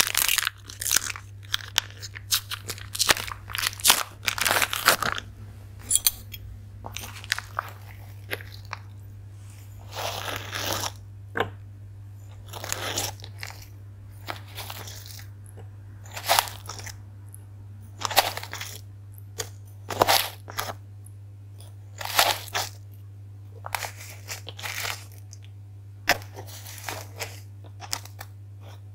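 A spoon scooping brown sugar out of a paper bag and tipping it into a Thermomix mixing bowl: short scraping, rustling crunches, one every second or two. A steady low hum runs underneath.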